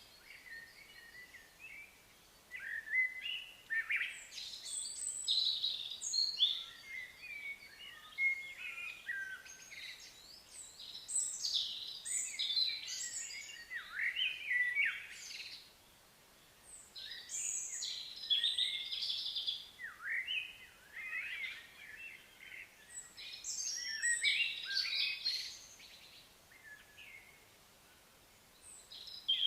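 Birds chirping and calling in bouts of quick, high chirps, with short gaps of faint outdoor background between the bouts.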